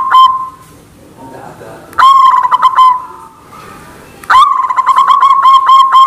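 White zebra dove (perkutut) cooing: a loud, ringing run of quick repeated notes, about four a second. It breaks off shortly after the start, comes back briefly about two seconds in, and picks up again for good a little past four seconds.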